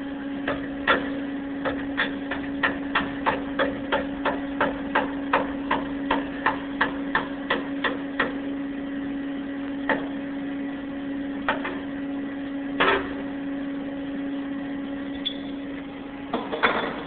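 Hammer strikes, about three a second for some eight seconds, then a few single knocks, loosening the CNC mill's workholding so the machined parts can be taken out. A steady machine hum runs underneath.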